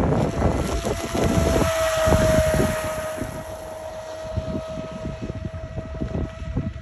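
Pro Boat Sonic Wake 36 RC speedboat running flat out: its brushless motor gives a steady high whine, loudest with a hiss of spray about two seconds in as the boat passes closest, then fading as it runs away. Wind buffets the microphone throughout.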